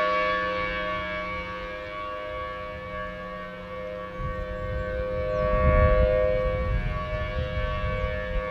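Federal Signal Thunderbolt 1000T outdoor warning siren sounding a steady tone, two pitches at once, swelling and fading as its rotating head sweeps around. The siren peaks about six seconds in, and a low rumble comes and goes under it in the middle.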